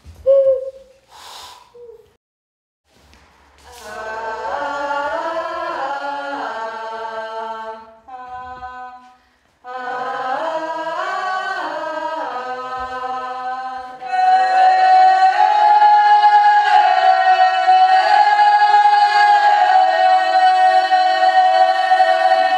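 A small group of voices singing a cappella in harmony, the pitches bending; the singing breaks off briefly, then settles from about two-thirds of the way in on a long held chord. It opens with a short, loud hoot blown into cupped hands.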